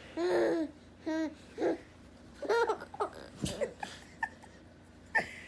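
A six-month-old baby laughing and squealing in short, high-pitched bursts, several in quick succession.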